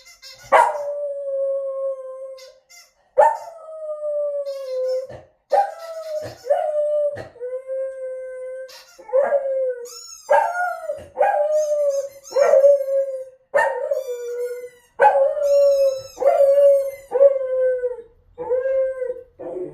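A dog howling and whining nervously in about a dozen drawn-out calls in a row. Each call starts sharply and settles into a held, slightly falling tone, with short gaps between calls.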